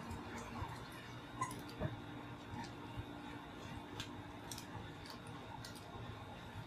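Quiet room tone with a faint steady hum and scattered small clicks and ticks.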